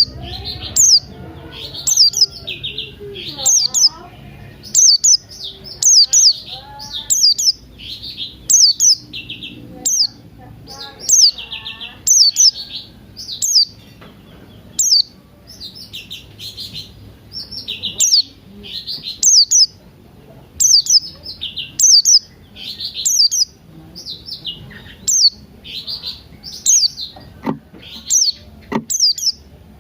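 Songbird calls repeated about once a second, each a sharp descending note followed by a short buzzy trill, with softer, lower chirping and warbling beneath.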